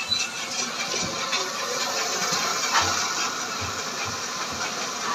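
Belt conveyor loader running with a steady rattling hiss, with a few dull thumps in the second half.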